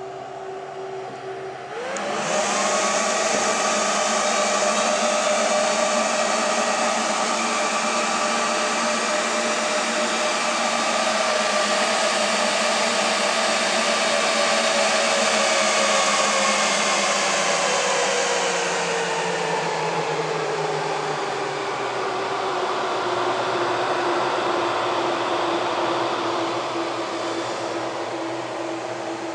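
Cooling fans of an HP ProLiant rack server with a DTS projector stacked on top. About two seconds in they spin up abruptly with a rising whine and run loud and steady with a hiss. Past the middle they slowly wind down, the whine falling in pitch, and settle into a lower steady hum.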